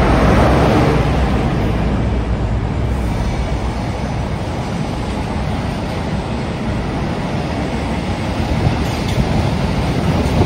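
DB Cargo Class 60 diesel-electric locomotive passing close by, its engine loudest in the first couple of seconds, followed by the steady rumble and clatter of empty flat wagons rolling past on the rails.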